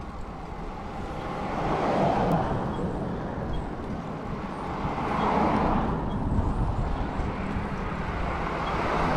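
Road traffic going by, three swells of tyre and engine noise that rise and fade, over a steady low rumble of wind on the microphone.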